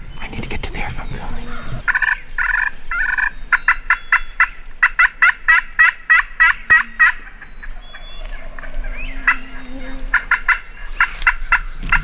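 Turkey calling in runs of short, sharp notes, about four a second, with a pause in the middle and another run near the end.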